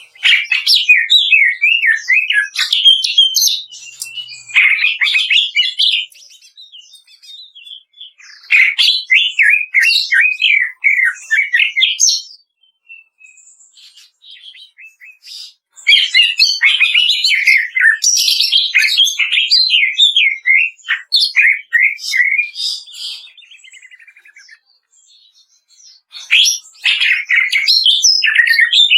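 Cucak ijo (green leafbird) singing in bouts of rapid, crackling trills of quick up-and-down notes, the fast 'kretekan' song used as masteran to train and provoke caged birds. Four or five bursts, each a few seconds long, come with short pauses between them.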